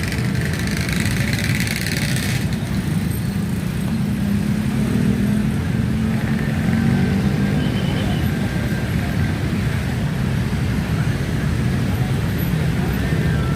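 Road traffic at a crossing: vehicle engines running with a steady low rumble, one engine rising in pitch a few seconds in. A hiss sounds over the first two seconds or so and then stops abruptly.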